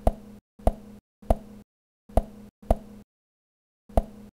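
A series of six short, sharp pops, irregularly spaced with a longer gap about three seconds in, each snipped off into dead silence: knock-like sound effects marking the steps of a paper cut-out figure walking.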